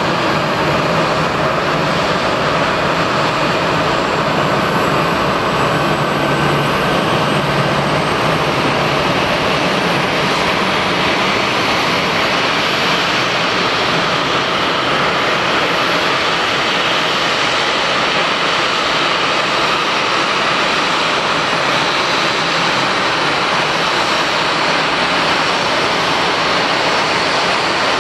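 Airbus A320-211's CFM56-5A turbofan engines running at taxi idle as the airliner rolls slowly past close by: a steady, loud jet rush with a faint high whine.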